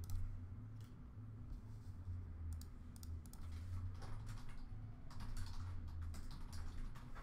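Computer keyboard and mouse being used: scattered light clicks and taps at an irregular pace, over a low hum.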